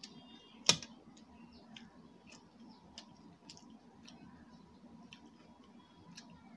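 Eating at a table: a fork clinks sharply once against a stainless steel plate under a second in, followed by soft, scattered clicks of chewing and the fork on the plate.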